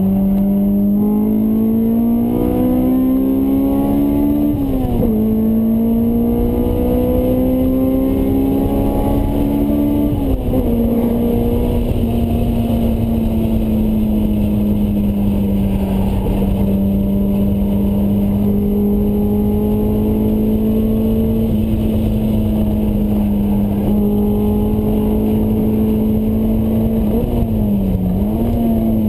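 Honda S2000's four-cylinder engine through a Mugen exhaust, heard from inside the cabin while accelerating on track. Its note climbs and drops sharply at an upshift about four and a half seconds in, climbs and drops again at a second upshift about ten seconds in, then holds a steady high drone. Near the end the note dips and quickly rises again. A constant low road and wind rumble runs underneath.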